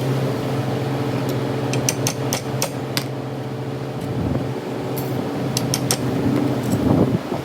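Steady machine hum with two quick runs of sharp metallic clicks, about two seconds in and again around five seconds in.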